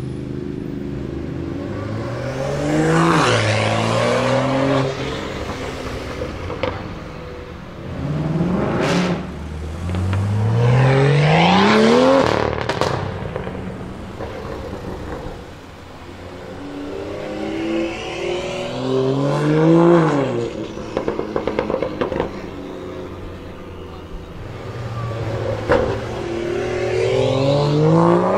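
Tuned BMW M2 F87's turbocharged straight-six on an aftermarket sports exhaust, accelerating hard four times. The pitch climbs steeply on each pull and then falls away, with a few sharp exhaust pops and cracks in between.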